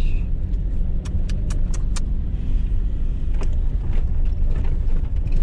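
1997 Ford Ranger pickup idling, a steady low rumble from inside the cab. A quick run of sharp clicks comes between one and two seconds in.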